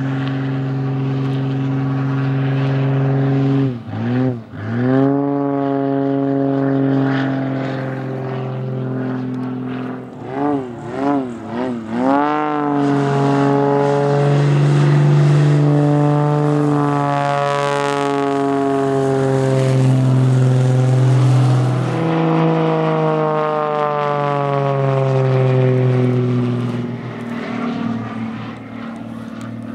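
Extra 300L aerobatic plane's six-cylinder Lycoming engine and propeller droning through a display routine, the pitch dipping sharply and recovering about four seconds in, wavering rapidly up and down around ten to twelve seconds in, then sliding down in long glides through the second half. The drone fades near the end.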